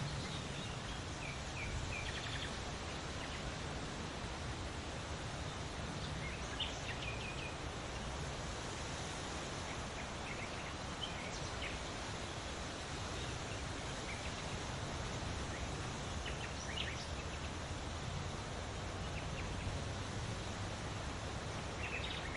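Forest ambience: a steady breeze with short bird chirps now and then.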